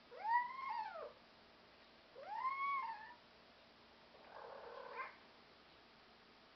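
European Shorthair house cat meowing: two meows about two seconds apart, each rising then falling in pitch, followed by a softer, breathier call.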